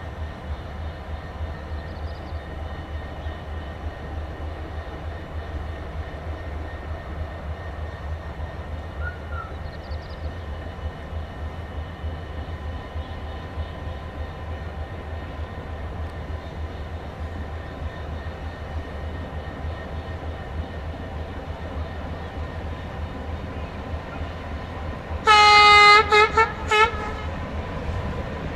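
Diesel-hydraulic LDH1250 shunting locomotive running with a steady low engine sound. Near the end its horn gives a loud blast of about a second, followed by three short toots.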